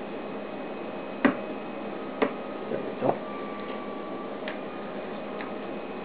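A hobby knife cutting away the small plastic stop flange on a Hitec HS-55 micro servo part, the flange that keeps the servo from turning continuously. It makes a few sharp, irregularly spaced clicks, most of them in the first half, over a steady faint hiss.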